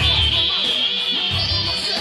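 Electric guitar playing a rock riff along with the recorded song, with rhythmic low drum and bass pulses underneath.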